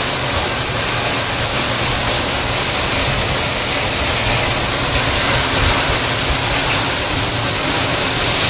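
Heavy monsoon rain falling steadily: a loud, even hiss with no let-up.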